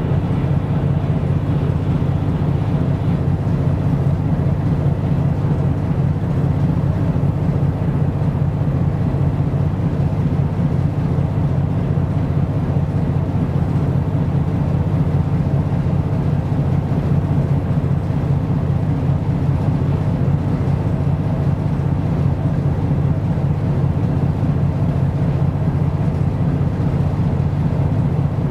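Ship's diesel engine drone, low and even throughout.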